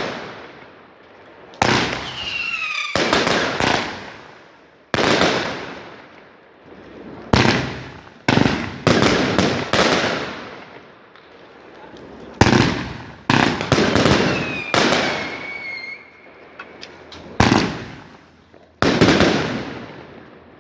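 Fireworks going off: about fifteen loud bangs in an irregular series, each with an echoing tail. A falling whistle sounds near the start and another near the middle.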